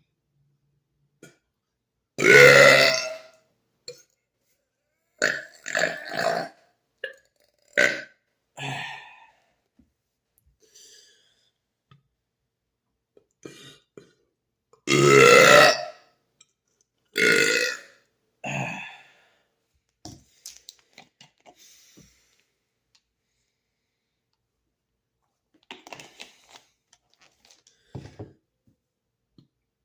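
A man burping loudly on purpose, again and again. There is a long burp about two seconds in, a run of shorter ones between about five and nine seconds, and another long one around fifteen seconds with two shorter ones just after. After that only faint sounds remain.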